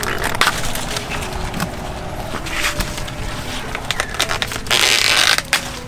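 Young corn ears being snapped and twisted off their stalks by hand, with the leaves and husks rustling: three bursts of tearing, the longest and loudest near the end.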